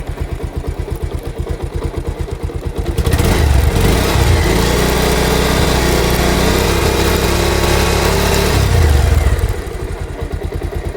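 Bajaj Pulsar single-cylinder motorcycle engine idling in gear, raised to a higher steady speed about three seconds in and held for about six seconds before dropping back to idle. No chain rattle is heard: the new chain set runs quietly.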